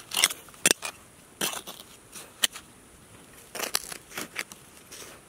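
Gloved hand scraping and scooping dry, crumbly soil out of a small hole: irregular gritty scrapes and crunches with soil spilling, and one sharper click about halfway through.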